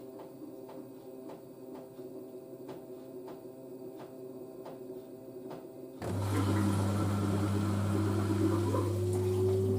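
LG DirectDrive washer dryer running a towel wash: the drum turns slowly with soft, regular clicks and a low hum. About six seconds in the machine switches suddenly to a much louder steady hum, and a whine rises in pitch as the direct-drive drum speeds up toward spin.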